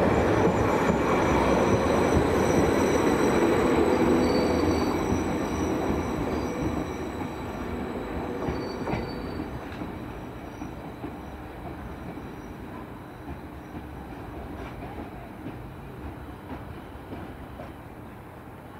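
Electric multiple-unit passenger train running on the rails, with thin high-pitched wheel squeals over the rumble, fading steadily as it moves away.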